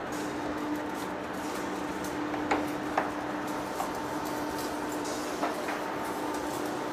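Steady hum of running heavy machinery with a few sharp metallic clanks, the two loudest about half a second apart midway through.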